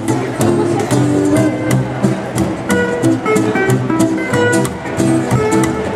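A trio of two acoustic guitars and a plucked upright double bass playing live. The guitars keep up a steady strummed rhythm with a picked melody line over walking bass notes.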